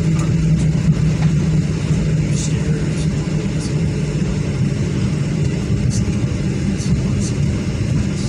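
Steady low cabin rumble of a Boeing 737 MAX 9 rolling out and slowing after landing, engine and wheel noise heard from inside the passenger cabin, with a few faint high clicks.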